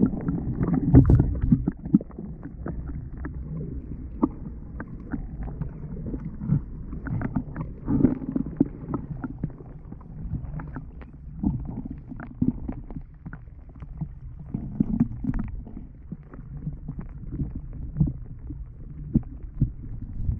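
Muffled underwater gurgling and rumbling of river current, heard through a submerged action camera's housing, with scattered small clicks and knocks. It is louder and sloshier in the first two seconds.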